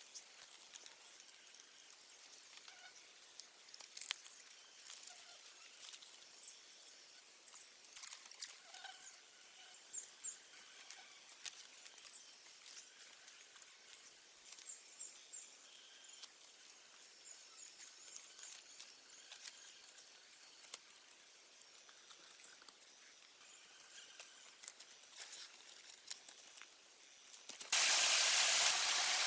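Soft clicks and rustles of thin bamboo strips being woven by hand into a basket trap, with faint high chirps in the background. Near the end a steady rush of running water from a small waterfall starts suddenly and becomes the loudest sound.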